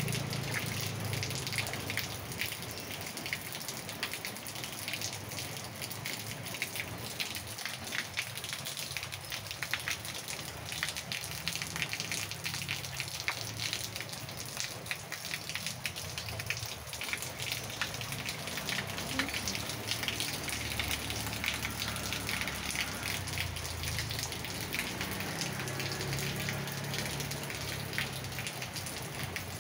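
Steady rain falling on a paved yard and garden plants: a dense, even patter of drops. A low hum sits underneath, strongest at the start and again in the last third.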